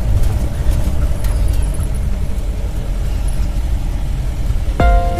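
Jeep engine and road noise as the jeep drives up to the cottage, a steady low rumble. Background music comes in near the end.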